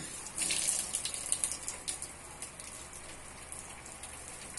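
Chopped vegetables sizzling and crackling in hot oil in a wok. The sharp pops come thick for the first two seconds and then thin out to scattered ticks.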